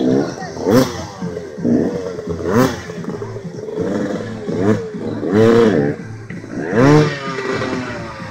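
Dirt bike engine revving in repeated throttle blips, its pitch climbing and dropping about once or twice a second, with the strongest revs near the end.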